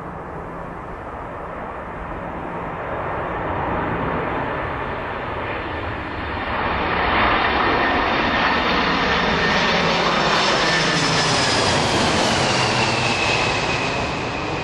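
Boeing 747 jetliner's four jet engines passing low overhead on landing approach: a steady jet roar that swells to its loudest from about seven seconds in. Near the end a high whine falls in pitch as the plane goes away.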